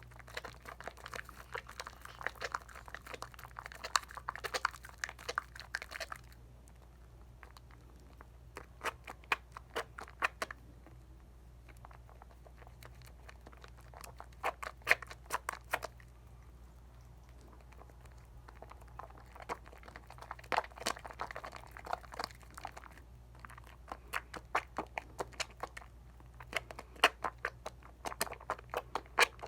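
Wet soap lather from a bar of Dial coconut soap being worked between the hands, a fine crackling and squishing of suds. It comes in bouts with short pauses.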